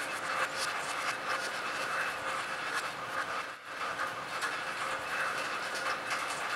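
Rain falling on a lake: a steady dense hiss of many small drops splashing on the water, with a brief lull about halfway through.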